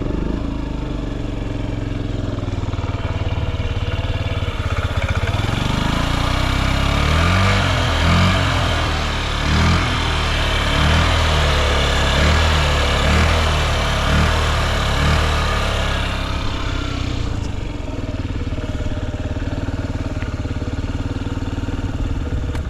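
Honda Zoomer (AF58) carbureted 49 cc four-stroke single-cylinder scooter engine idling, then blipped up in a series of throttle revs for about ten seconds before settling back to idle. It runs without abnormal noise, a quiet engine sound.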